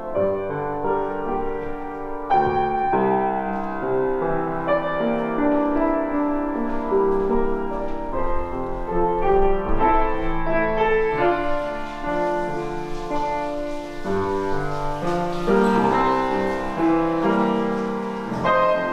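Solo piano music: notes and chords played in a flowing melody, with sustained notes overlapping.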